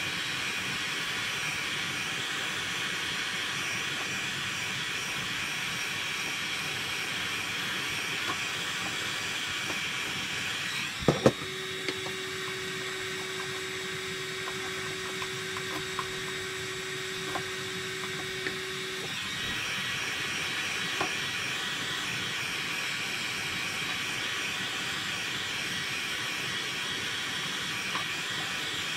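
Heat gun blowing a steady hiss of hot air over a waxed wooden walking stick. About a third of the way through it stops with a sharp click, leaving a steady hum and a few light taps for several seconds, then the heat gun blows again.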